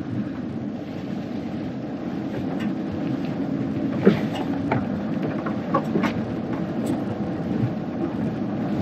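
A car driving slowly in low gear over a snow-covered road, heard from inside the cabin: a steady low rumble of engine and tyres, with scattered knocks and rattles from the rough surface.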